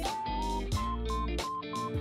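Background music: a plucked guitar melody stepping between a few notes over a bass line, with a steady rhythm.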